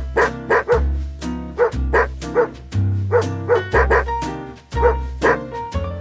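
A dog barking repeatedly in short, evenly spaced barks over background music with a steady bass line.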